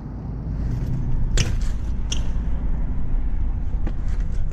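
Low rumble of a BMX bike rolling on pavement, with sharp knocks about a second and a half in, again about half a second later, and once more near the end as the bike's wheels strike the ground.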